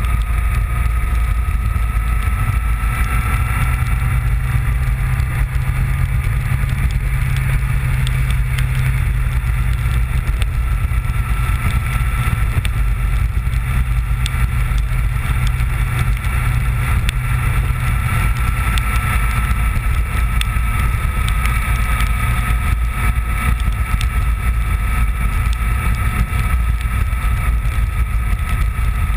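Honda VFR750 motorcycle's V4 engine running at a steady road speed, mixed with heavy wind rumble on the microphone. A faint whine drifts slightly up and down in pitch.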